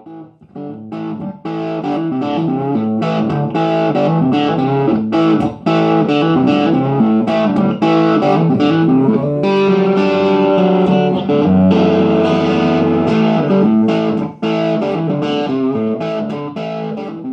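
Telecaster electric guitar played through a 20-watt 6V6 valve combo amplifier with a single 12-inch speaker: a continuous run of picked notes and chords, with some longer held chords about two thirds of the way through.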